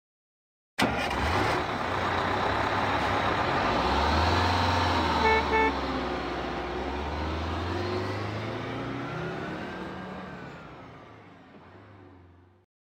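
Bus engine running as the bus drives off, with two short horn toots about five seconds in, then fading away until it cuts off near the end.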